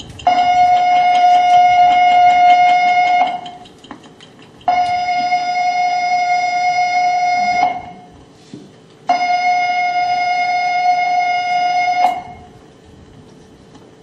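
Launch-countdown warning signal: three long, steady electronic alarm tones of about three seconds each, a buzzy high pitch with short pauses between. It is the final signal before rocket ignition, heard from old film played back over room loudspeakers.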